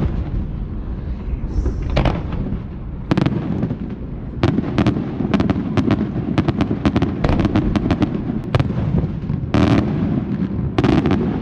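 Aerial fireworks display: a rapid run of sharp bangs and pops over a continuous low rumble of launches and booms, sparse at first and coming thick and fast from about four seconds in.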